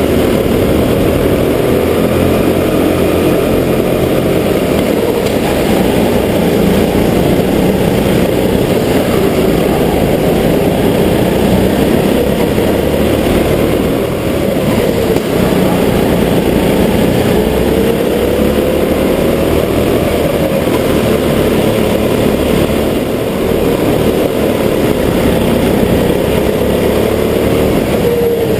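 Go-kart engine running under throttle, heard onboard, its pitch rising and falling as the kart drives through the corners, with two brief dips in loudness.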